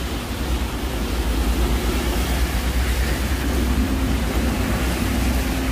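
Heavy rain falling in a steady hiss, with a low rumble beneath it. A faint steady hum comes in about four seconds in.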